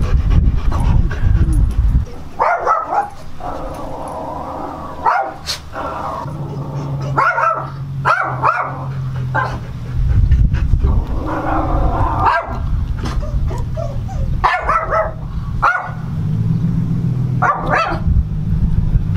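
A husky barking and yipping in short bouts every two to three seconds as it meets another dog.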